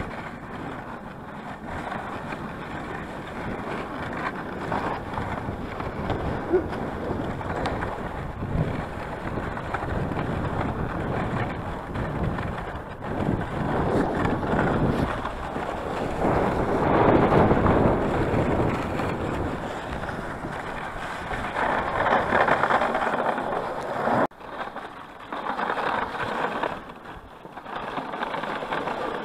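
Dog sled runners scraping and hissing over a packed snow trail, with wind buffeting the microphone. The noise rises and falls, loudest a little past halfway, and drops away briefly twice near the end.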